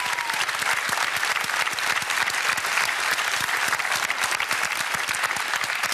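Studio audience clapping, a steady applause of many hands.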